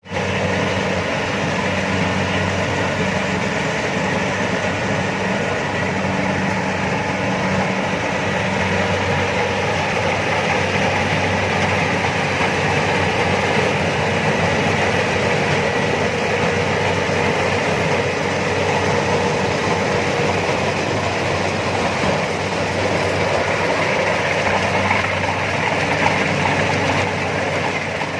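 Rice combine harvester running steadily, its engine humming under a continuous mechanical din.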